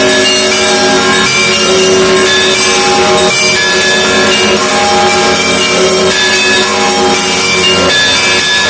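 Russian Orthodox monastery bells ringing together: many bells of different pitches struck in quick, overlapping succession, the small high bells chiming over the long-ringing tones of the larger ones.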